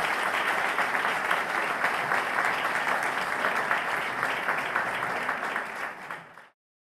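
Audience applauding, a dense run of many hands clapping that fades and stops about six and a half seconds in.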